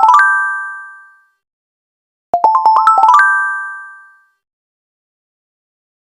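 A short chime jingle: a quick rising run of bell-like notes that rings away, heard as the tail of one run and then the whole run again about two seconds in, with dead silence between.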